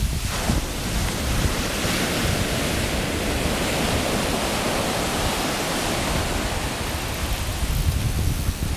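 Breaking surf washing up the beach in a rough sea: a steady rush of water, with wind buffeting the microphone.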